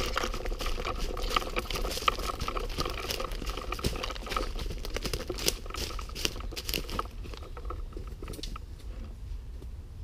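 Rustling and crunching of someone moving off on foot, a dense run of small crackles, quieter over the last couple of seconds.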